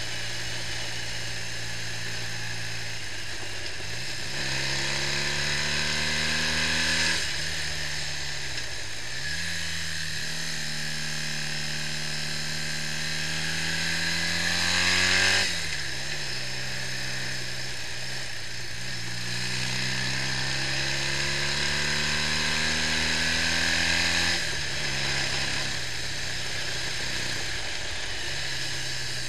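BMW R65's air-cooled flat-twin boxer engine pulling on the road, its note climbing under throttle and dropping sharply three times at gear changes or throttle lifts, over a steady hiss.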